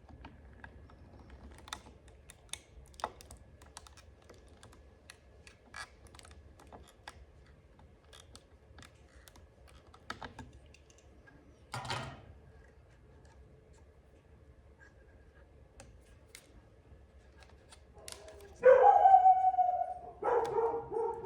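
Scattered light clicks and taps of hand work at a bench. Near the end come two short, loud pitched vocal calls.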